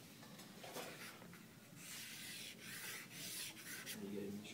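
Soft pastel stick rubbing and scraping across drawing paper in a series of short, scratchy strokes.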